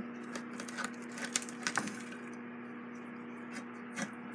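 Scattered small metallic clicks and taps, a cluster in the first two seconds and one more near the end, as a screwdriver works at the screws of an Emerson fan's rusty steel base plate. A steady low hum runs underneath.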